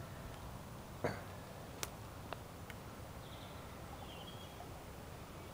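Quiet woodland background with a few light clicks and two faint, high bird chirps a little past the middle.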